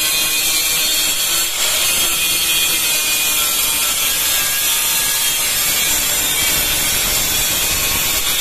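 Angle grinder with its cutting disc grinding a bevel along the edge of a ceramic tile: a steady, high hiss of the spinning disc cutting into the tile.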